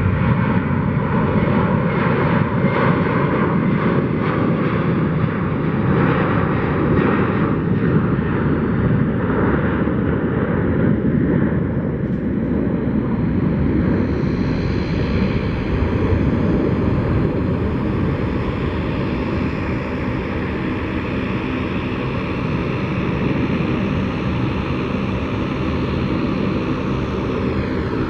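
Boeing 737-800's twin CFM56-7B turbofan engines at takeoff power, a loud steady jet noise, easing a little in the second half, with a faint high fan whine slowly rising in pitch from about halfway.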